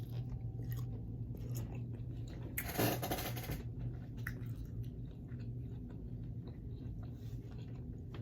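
A person biting and chewing fried chicken wings close to the microphone, with small wet clicks and one louder crunch about three seconds in. A steady low hum runs underneath.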